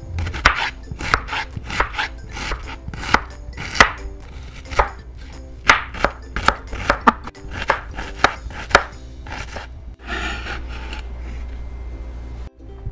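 Kitchen knife chopping a red onion on a wooden cutting board: a run of sharp, irregular knife strikes against the board. Near the end the strikes give way to a softer, longer scraping as the chopped onion is swept up with the blade.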